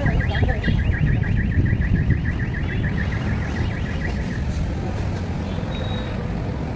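Rapid warbling electronic alarm tone, pulsing several times a second, that stops a little past halfway, over a steady low rumble.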